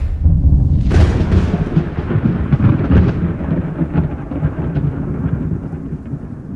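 Thunder-like rumble sound effect with a sharp crack about a second in and scattered crackles, dying away slowly over several seconds.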